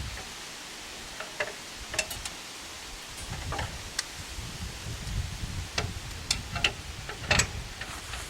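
Scattered light metallic clicks and clinks of hand tools working on the engine, over a steady background hiss.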